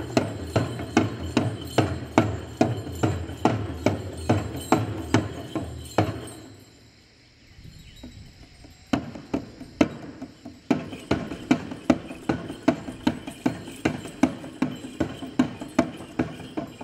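Shamans' dhyangro frame drums beaten with sticks in a steady dance rhythm, about three strokes a second. The drumming breaks off about six seconds in and starts again about three seconds later.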